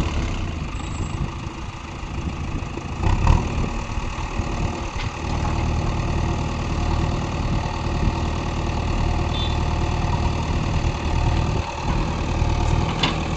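JCB digger's diesel engine running steadily at low revs, with a single clank about three seconds in.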